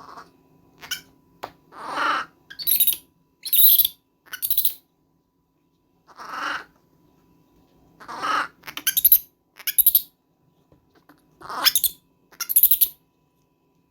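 Baby monkey screaming repeatedly: short cries in three clusters, some very shrill.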